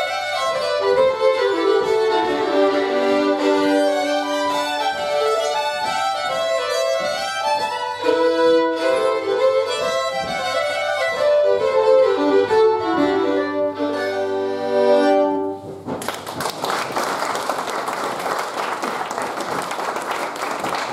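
Three fiddles playing a Swedish folk polska together, running melodic lines over sustained low notes. The tune ends about three-quarters through and audience applause follows.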